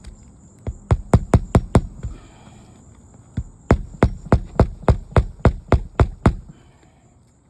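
Hammer blows driving roofing nails into a shingle: a quick run of about seven strikes, a pause, then a steadier run of about a dozen, roughly three to four a second.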